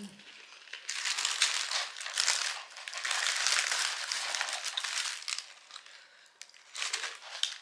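Paper sandwich wrapper crinkling and rustling as it is folded back from a burger, for about five seconds before it fades.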